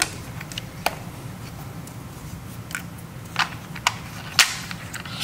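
Small plastic clicks and taps from handling an RC truck's battery hold-down strap and battery: a single click about a second in, then three sharp clicks in the second half, the loudest near the end, over a low steady hum.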